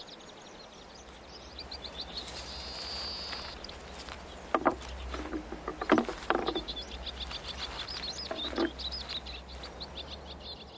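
Natural outdoor ambience: rapid high chirping trills from a small animal come in several runs, with a few sharp knocks in the middle stretch.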